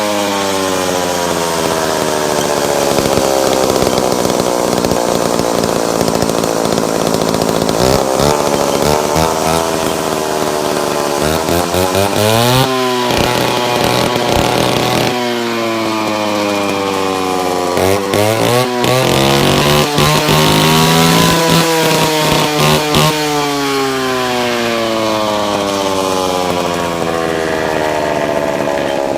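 Mikata concrete cutting saw running, its motor pitch slowly sinking and then climbing back up several times, over a constant hiss.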